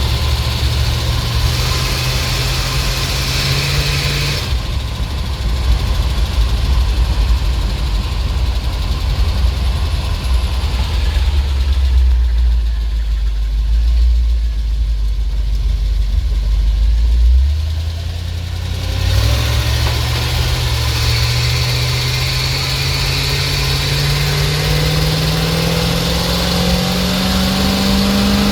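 ZIL truck's petrol engine running under load. Its note drops about four seconds in, it dips briefly around two-thirds of the way through, then climbs steadily in pitch for the last ten seconds as the engine accelerates.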